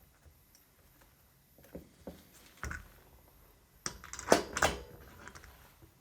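Knocks and sharp metal clinks of a small trolley wheel being handled and slid back onto its axle. A few soft knocks and a dull thud lead into a louder burst of clatter about four seconds in.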